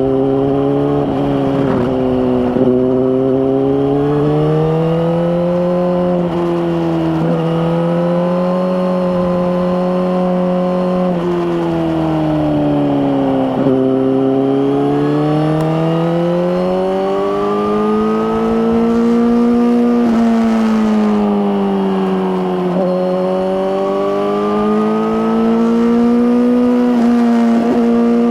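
Suzuki GSX-R1000R's inline-four engine running through an Akrapovic slip-on exhaust while riding. The engine note rises and falls in long waves, with a few sharp dips where the revs drop and then climb again.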